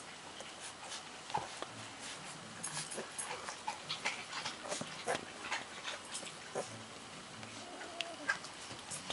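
Thirteen-day-old golden retriever puppies giving faint, brief whimpers and squeaks, among many small clicks and scuffs.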